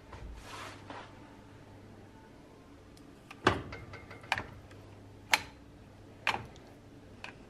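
Metal cutlery scraping and clinking against an aluminium foil tray: a soft scrape at first, then four sharp clinks about a second apart and a fainter one near the end.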